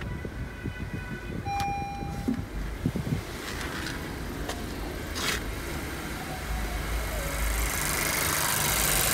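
Honda CR-V engine idling with the AC switched on. It is punctuated by a few clicks and knocks and a short beep in the first three seconds, then a steady hiss that grows louder from about seven seconds in.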